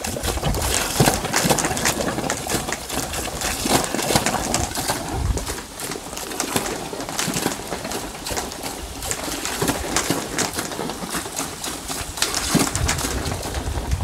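Water mixed with pulsed bursts of compressed air sputtering and gurgling out of the end of a plastic hose into a floor drain, irregular and continuous, as a pipe-cleaning machine's pulse function flushes the line.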